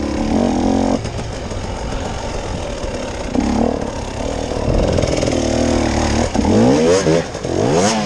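Off-road vehicle engine running under load, then revved twice in quick rising bursts near the end.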